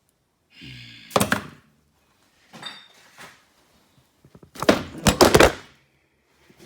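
Hard knocks and thuds from objects striking a hard surface: one sharp knock about a second in, a lighter one near three seconds, then a louder clatter of several impacts around five seconds in as the camera is knocked over.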